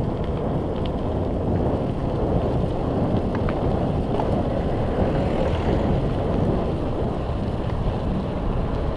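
Wind rushing over the microphone of a camera on a moving mountain bike, a steady low rumble, with a few faint clicks from the bike.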